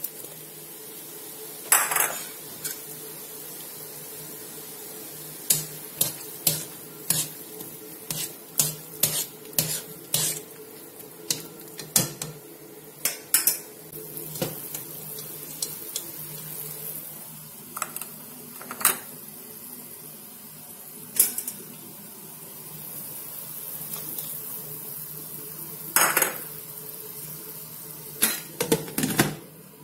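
A metal utensil clanking irregularly against a wok as vegetables are stirred in boiling water to blanch them, over a steady hum.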